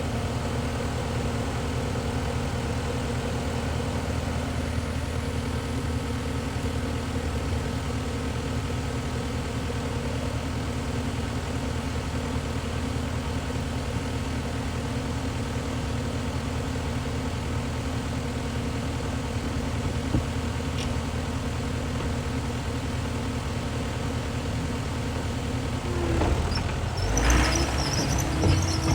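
Skid steer engine running steadily. Near the end there are several louder knocks and clatter, and the engine note changes.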